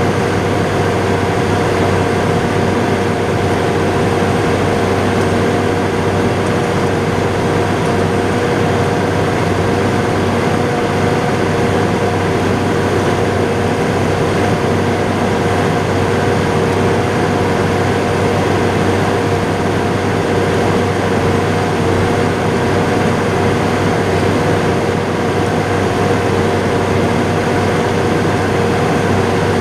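John Deere 7800 tractor's six-cylinder turbo-diesel engine running at a steady speed, heard from inside the cab: a constant drone with an unchanging pitch.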